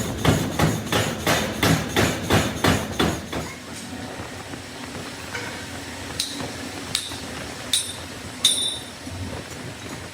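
Hammer striking metal in a steady run of about three blows a second, stopping a little over three seconds in; then four separate sharp, ringing metallic clinks.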